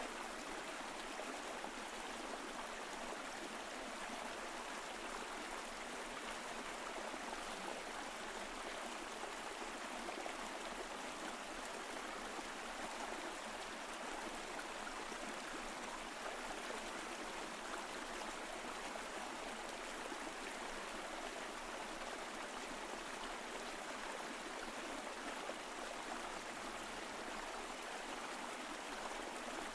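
Mountain stream flowing over rocks: a steady rushing and burbling of water, even throughout with no change.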